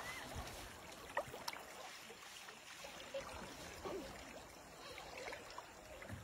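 Faint lapping and trickling of river water, with a few small clicks and knocks.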